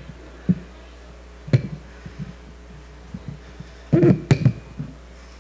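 Lectern microphone being handled: a few scattered knocks and bumps, with a louder cluster of them about four seconds in, over a steady low hum from the sound system.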